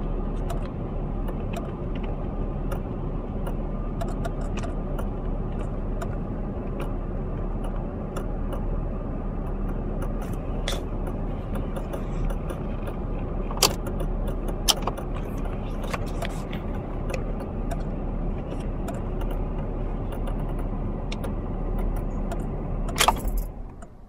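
Steady car engine and road noise heard inside the cabin, with occasional sharp clicks and rattles. A loud click comes near the end and the noise then drops away abruptly.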